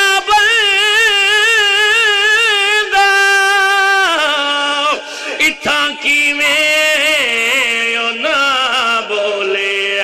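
A man's voice chanting a Punjabi verse in long, melodic held notes with a wavering vibrato, amplified through a microphone. About four seconds in, the melody drops lower and breaks into shorter phrases that slide downward.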